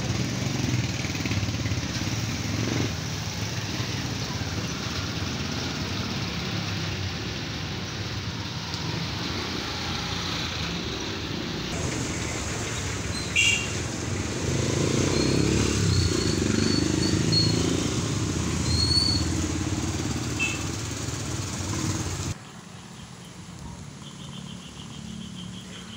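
Steady rain on a wet street while motor vehicles and motorcycles pass with a hiss of tyres on water. One vehicle passes louder and closer in the middle. Near the end the sound drops suddenly to a quieter, even rain hiss.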